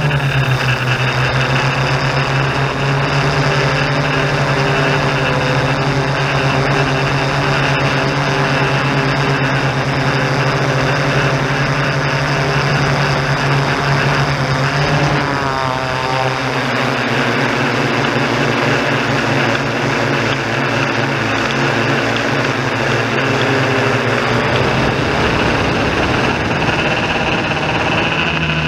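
Motors and propellers of a Yuneec Typhoon G hexacopter drone running in flight, heard close up as a steady, loud multi-pitched hum. About halfway through the pitch glides up and holds at a new level for several seconds, then shifts back near the end as the drone changes throttle.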